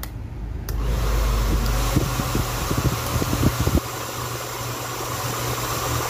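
Handheld hair dryer running: a steady rush of fan and airflow with a low motor hum, and a few low thumps about two to four seconds in. It is blowing only slightly warm air, which the repairer suspects comes from a heating element with a poor connection at one of its ends.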